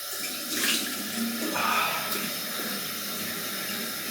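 Cold water running from a tap into a bathroom sink, with a couple of louder splashes as water is scooped up to rinse the face after a shave.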